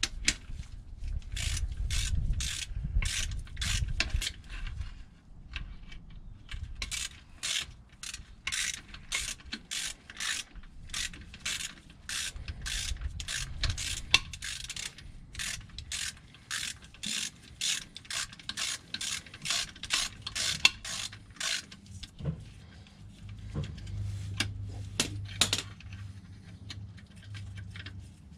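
Hand ratchet clicking in quick runs, with short pauses, as a socket on an extension backs out oil pan bolts.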